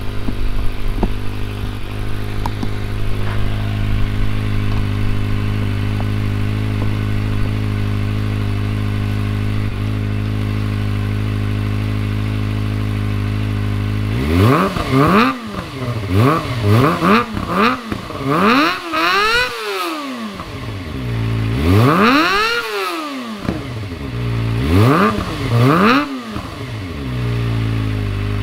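Kawasaki ZX-25R's 250 cc inline-four idling steadily through an Akrapovic full-system exhaust with the dB killer fitted and the catalytic converter deleted. About halfway in it is revved in a string of quick blips, two of them held longer and higher, then drops back to idle. Loud.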